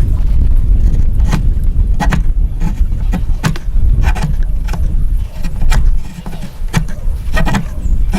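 Hand woodworking: irregular sharp taps and knocks of tools on wood, about one or two a second, over a steady low rumble.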